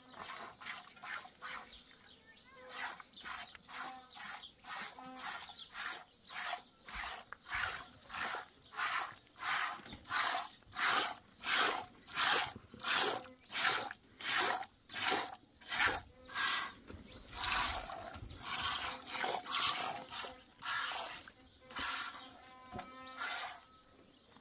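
A goat being milked by hand: streams of milk squirting into a metal pot that already holds milk, in a steady rhythm of about two squirts a second.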